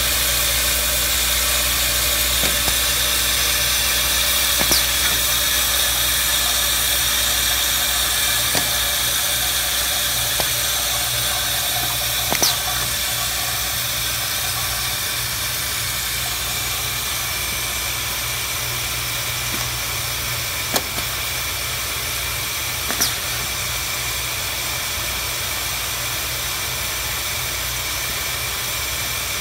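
Vibratory parts feeders (a bowl feeder and an Automation Devices linear feeder) running: a steady low hum under a constant hiss as small stamped metal parts are shaken along the track. A few sharp clicks are scattered through.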